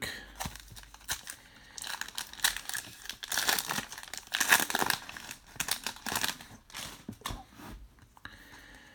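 Crinkling of a trading-card pack wrapper being handled, in irregular rustling crackles that are loudest in the middle and fade out near the end.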